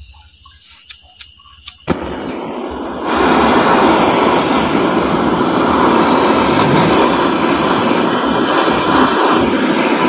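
Handheld butane gas torch: a few small clicks, then it lights about two seconds in with a steady hiss, and a second later the flame is turned up to a louder, steady rushing burn.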